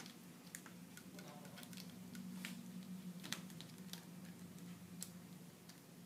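Faint scattered clicks and light taps of a BNC compression connector and coax cable being seated in the jaws of a hand compression tool, over a low steady hum.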